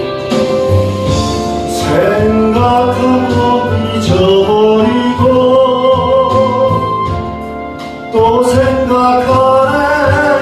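Gospel song: a voice singing long, gliding notes over instrumental accompaniment.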